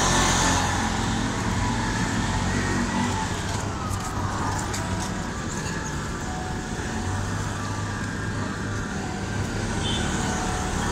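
Street traffic noise: motor tricycles and cars running past on the road, a steady mix of engine hum and road noise.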